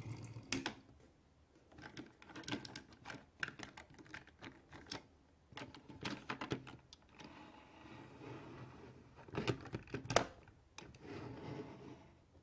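Plastic toy car hauler being handled: irregular clicks and taps of plastic parts as its ramp is folded up and the trailer side closed, with short rubbing scrapes and one louder click about ten seconds in.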